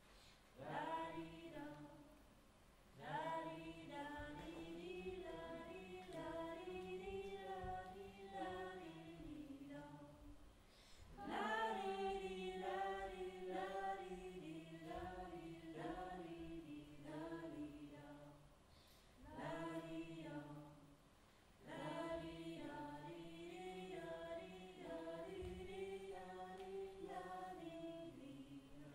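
A small group of voices singing unaccompanied in harmony, in long slow phrases with brief pauses between them.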